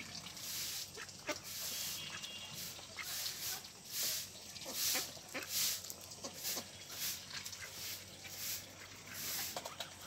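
A flock of domestic ducks quacking, with short calls coming irregularly every half second to a second.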